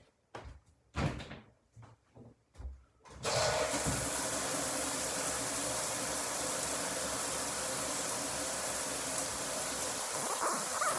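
A few short handling knocks, then about three seconds in a shower is turned on and its spray runs steadily.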